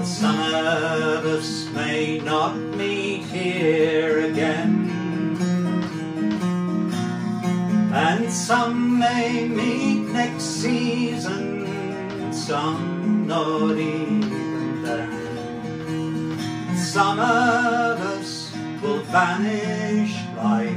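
Acoustic guitar played solo as the accompaniment to a folk song, strummed and picked at a steady pace.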